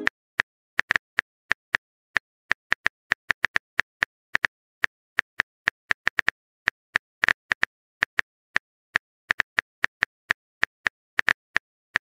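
Phone keyboard typing sound effect: a run of short, light taps at an irregular pace, about three or four a second.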